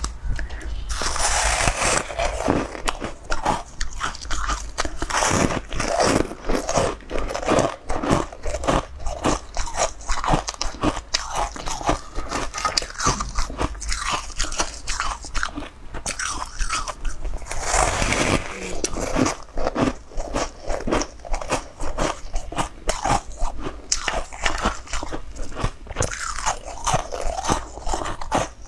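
Crunching bites and chewing of a pale blue, bun-shaped food close to the microphone: a steady run of crisp crackles, with heavier bites about a second in and again around eighteen seconds.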